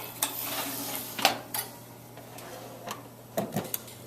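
Metal broiling pan and rack being slid into a toaster oven: a brief scraping rattle, then several clanks and knocks of metal.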